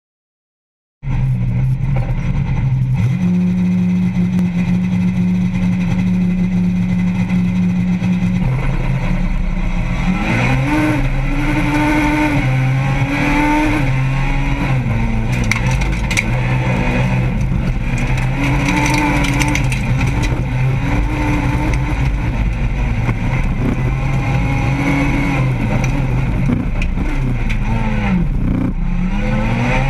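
Renault Clio 2 Super1600 race car's 1.6-litre four-cylinder engine heard from inside the cockpit, starting suddenly about a second in. It is held at steady revs for several seconds, then accelerates hard, its pitch rising and dropping again and again through the gear changes.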